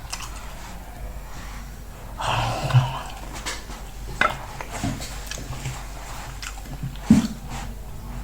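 Mukbang eating sounds: chewing and mouth noises while eating fufu with light soup, with scattered wet smacks and clicks. A brief noisier stretch comes about two seconds in.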